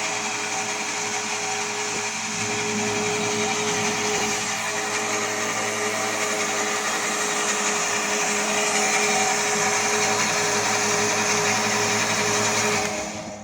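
YCM-170 portable band saw running steadily, its motor and blade making a steady whine over a dense hiss. It stops near the end.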